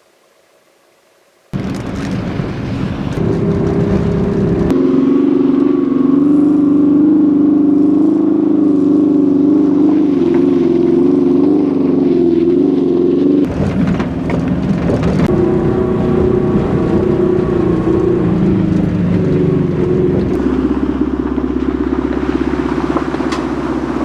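Volkswagen Syncro camper van driving, its engine and road noise running steadily with a slightly wavering pitch. The sound starts suddenly about a second and a half in and changes abruptly twice, in the middle and later on.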